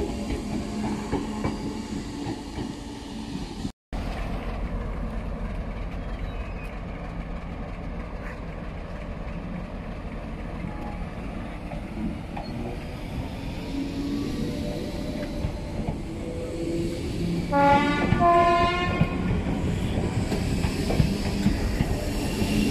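Merseyrail electric train running on the track with a steady low rumble. About eighteen seconds in it sounds a short horn of two notes, low then high.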